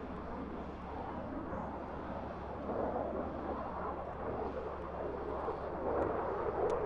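F-16 fighter jet's engine heard in flight as a steady, rushing jet rumble, growing louder near the end as the jet turns.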